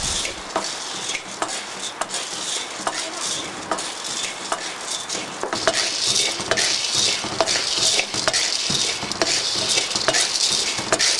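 Coffee beans being hand-roasted in a metal pan and stirred with paddles: a steady scraping hiss of beans moving over the metal, with many small clicks as the beans rattle.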